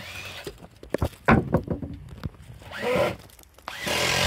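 Several sharp knocks on wood, the loudest about a second in, then a power drill starting near the end and running steadily, as boards are fastened during boardwalk repair work.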